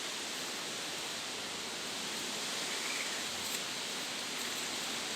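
Steady rushing hiss with no distinct events, only a few faint ticks.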